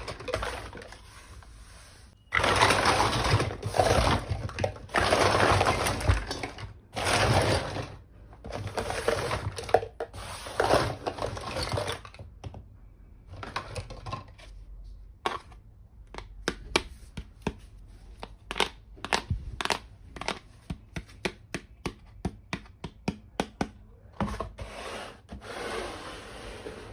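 Unboxing a toy: packaging crinkling and tearing in several long bursts. Then comes a fast run of sharp clicks and taps, like small plastic pieces being handled and set down.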